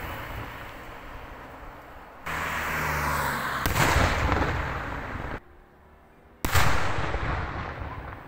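Aerial firework shells bursting high overhead in a daytime display: the fading rumble of one burst, then three more loud bangs, each followed by a long rolling echo.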